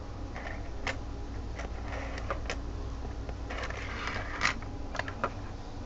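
Small plastic toy parts of a B-Daman figure being handled and fitted together: scattered sharp clicks and a short rustle of parts about two thirds of the way in, over a steady low hum.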